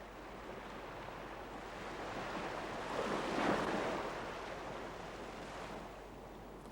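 Sea surf on a beach: a wave swells in about three seconds in and then washes back down.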